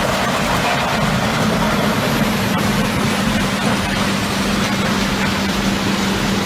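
Heavy wood-processing machinery running steadily: an even mechanical noise with a constant low hum.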